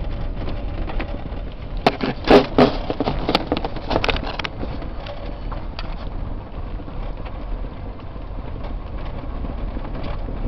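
Cab noise of an electric-converted Ford Courier pickup driving on a rough dirt track: a steady low rumble of tyres on gravel, with no engine note. A burst of knocks and rattles comes from about two to four and a half seconds in, loudest near the start of that run, as the truck jolts over bumps.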